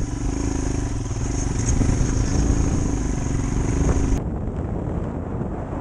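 Motorcycle engine running as the bike pulls away on a gravel track, getting a little louder about two seconds in. About four seconds in the sound changes abruptly to a rushing haze of wind on the microphone.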